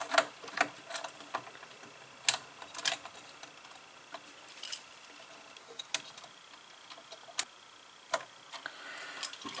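Scattered light clicks and taps, about a dozen at irregular intervals, from hands pushing a wire into a relay board's screw terminal in an electrical control cabinet.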